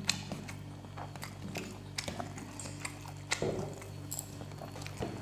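Quiet eating sounds: fingers mixing rice and curry on a plastic plate, and chewing, heard as scattered small clicks and taps over a steady low hum.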